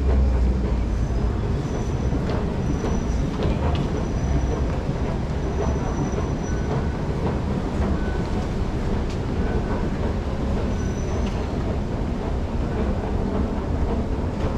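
MRT train running into an underground station behind platform screen doors: a steady rumble of wheels on rail.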